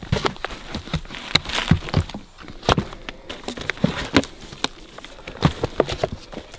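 Irregular clicks, knocks and rustles of footsteps and handling among the logs and forest litter at a bear bait pile.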